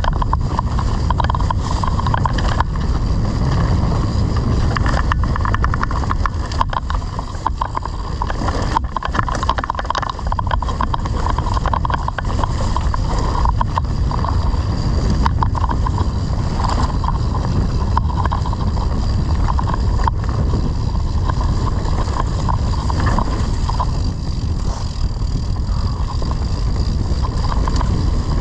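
Wind rumbling on the microphone of a camera on a mountain bike riding a trail, with many small knocks and rattles from the bike going over rough ground.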